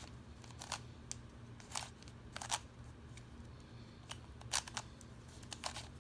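Plastic Fisher cube, a twisty puzzle, having its layers turned by hand: about ten short plastic clacks, spaced unevenly, as the faces are twisted and snap into place.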